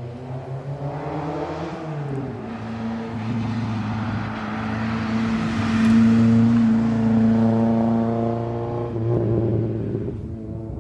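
Historic rally car engine running hard along the stage, getting louder as it comes close, with a drop in engine pitch about two seconds in and another change near nine seconds, as at gear changes.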